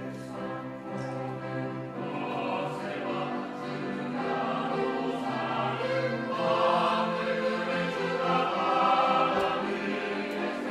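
Church choir singing a sacred anthem in parts, with sustained sung chords, growing louder a little past halfway through.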